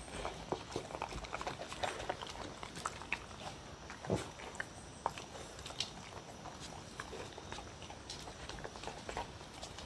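Two dogs eating wet food from a wooden bowl: chewing and lapping with many small clicks. There is one louder knock about four seconds in.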